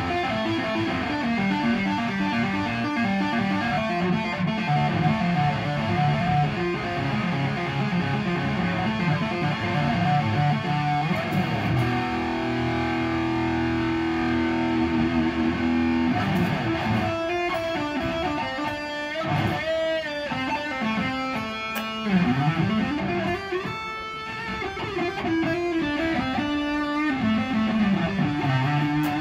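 Cheap Ibanez-copy electric guitar, rewired and freshly set up, being played to show off its tone. Quick runs of single notes give way to a held chord about 12 s in. After that come several notes whose pitch swoops down and back up.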